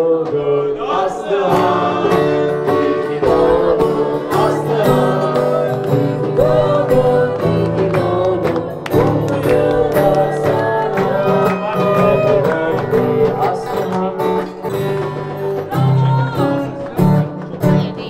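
Music: a song with singing over guitar and a steady beat.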